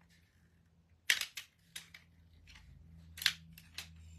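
Sharp clicks and snaps of a handheld stapler being opened and loaded with a fresh strip of staples after running empty: about eight clicks, the loudest about a second in and just past three seconds in.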